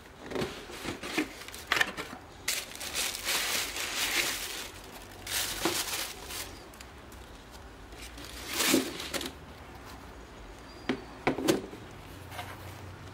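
Tissue paper wrapping crinkling and rustling in several bursts as running shoes are unwrapped and lifted out of a cardboard shoebox, with a few short knocks near the end.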